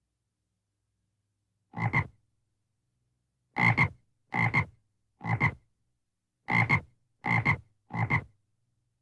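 Frog croaking: seven short croaks, each a quick double pulse. One comes alone about two seconds in, then six follow in a steady series about one every three quarters of a second.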